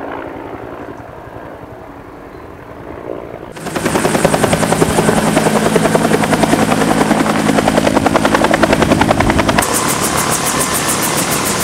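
Helicopter rotor chop: quieter at first, then loud from about three and a half seconds in, a rapid, even beat of the blades over a steady engine hum. Near the end the low hum drops away and the beat turns sharper and higher.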